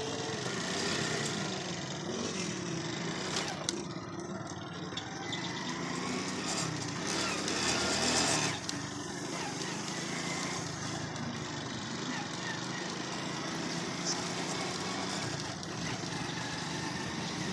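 A motorcycle engine running steadily while riding along a road, with road noise. It gets louder briefly about halfway through.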